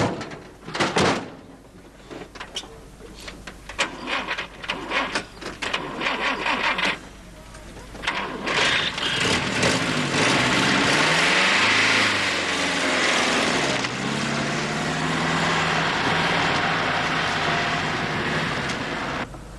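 Scattered knocks and clatter from handling a car, including a door shutting, then a vintage saloon car's engine runs up and the car pulls away. Its note sweeps down and up, then settles into a steady drone that cuts off just before the end.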